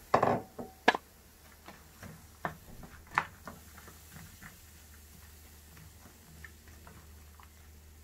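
Wooden spoon stirring diced onions in a ceramic-lined frying pan, making scattered light taps and clicks against the pan. Two sharper knocks come in the first second.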